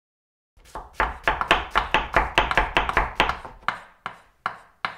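Knife chopping quickly on a cutting board: a rapid, even run of sharp strokes, about five a second, beginning about half a second in and breaking briefly near the end.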